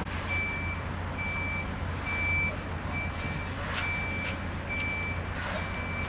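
A vehicle's reversing alarm beeping steadily, one high single-tone beep about every second, over a low engine rumble.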